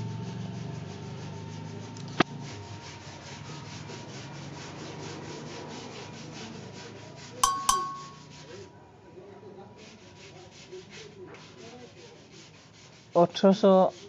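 Scratchy, rubbing noise with a low hum, pulsing several times a second: wind and handling noise on a moving camera's microphone. There is a sharp click about two seconds in, and two sharp ticks with a short ringing tone about halfway through. A voice-like sound comes in near the end.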